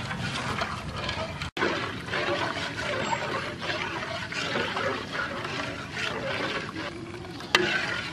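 A metal ladle stirring hot, thickening milk in a metal pot on a gas stove: liquid sloshing and bubbling with scrapes against the pot. A brief gap about a second and a half in, and a sharp clack near the end.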